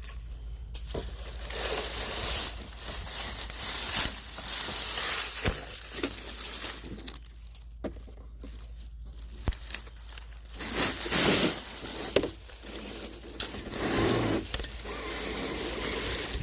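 Close rustling and crinkling that rises and falls, with a few sharp clicks scattered through it.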